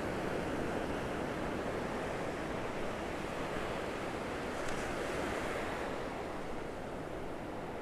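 Gulf of Mexico surf washing onto the beach: a steady, even rush of breaking waves, easing slightly near the end.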